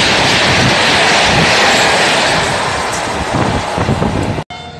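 Gatimaan Express passing at speed right beside the platform: a loud rushing noise of coaches and wheels on the rails, with wind buffeting the microphone. It eases off from about two and a half seconds in as the last coach goes by, then cuts off abruptly near the end.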